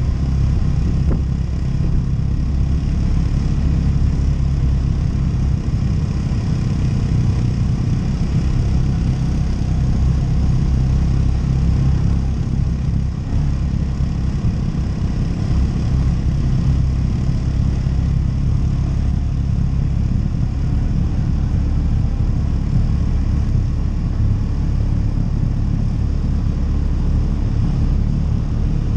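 ATV engine running steadily as it is ridden, mostly a low-pitched sound with little change in speed.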